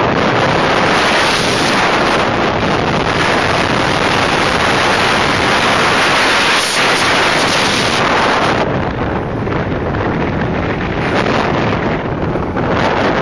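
Heavy wind buffeting on the microphone of a camera mounted on a moving 2008 Subaru Impreza WRX STI: a loud, steady rush of noise that swamps the car's engine, easing slightly in the second half.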